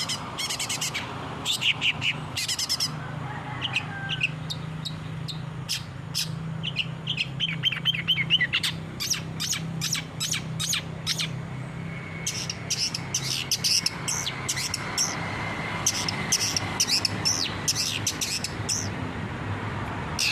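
Long-tailed shrike (cendet) singing a fast, varied run of sharp chirps, rapid trills and harsh notes, with a low steady hum underneath.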